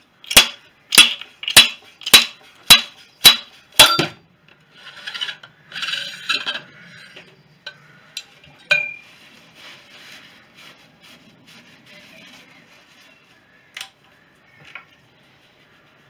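Ducati 750SS front fork: the stanchion is slammed out against its lower slider seven times in quick succession, about two sharp metallic knocks a second. This is the slide-hammer action used to shift the fork bushes and seal. After that come softer scraping and handling sounds and a couple of light clinks as the fork parts are moved about.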